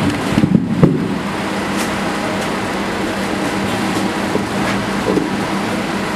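Steady mechanical hum and hiss of room noise, with a few short knocks just under a second in.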